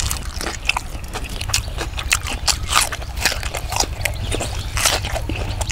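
A man chewing with his mouth open, making a rapid, irregular run of wet smacks and clicks as he eats fish and salad by hand.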